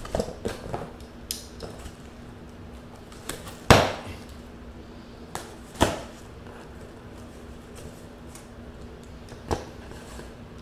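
Hand tools clicking and knocking on a cardboard shipping box as its seam is pried open with a screwdriver: a scatter of small taps, with sharper knocks about four, six and nine and a half seconds in.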